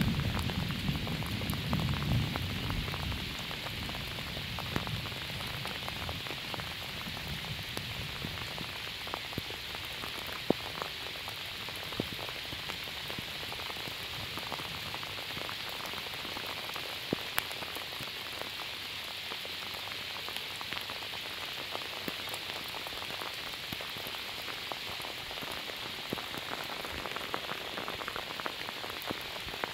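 Steady rain, with scattered sharp drop taps, during a thunderstorm. A low rumble of thunder fades away over the first few seconds.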